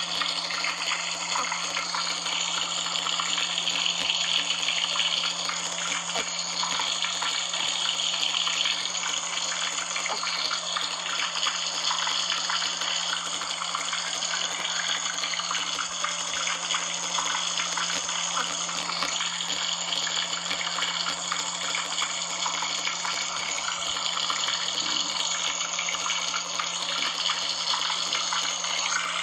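Heavy rain falling steadily, with a low steady hum underneath.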